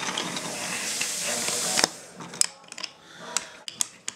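A toy train being played with on a wooden track: a steady whirring hiss for about two seconds that stops with a sharp click, then scattered light clicks and knocks of the toy and track pieces.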